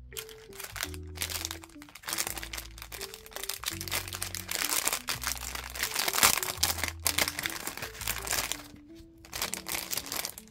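A thin clear plastic bag crinkling and rustling as a stack of paper-backed suncatcher decals is handled and slid in and out of it, with a short pause near the end. Soft background music plays underneath.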